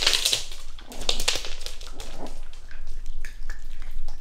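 Shiba Inu puppies' paws and claws clicking irregularly on a wooden floor as they scamper about playing, with a brief hissing rustle at the start.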